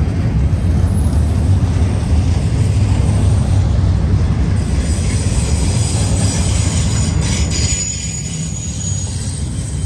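BNSF freight train rolling past with a heavy, steady low rumble. About halfway through, high-pitched wheel squeal joins in, and the rumble eases slightly near the end.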